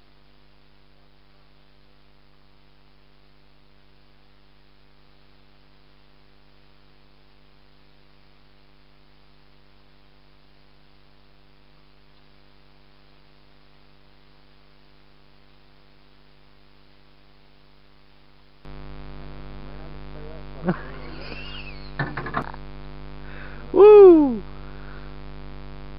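A low, steady electric hum, faint at first, jumps abruptly louder about three-quarters of the way through. After it come a couple of small clicks and then, near the end, a man's loud, short whoop that rises and falls in pitch.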